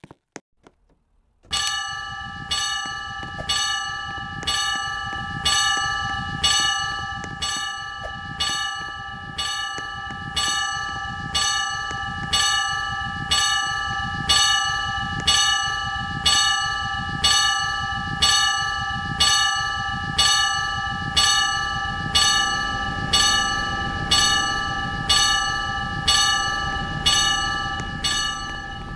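Railway level-crossing warning bell starting suddenly about a second and a half in, then striking steadily about once a second. In the last several seconds a train's low rumble builds beneath it.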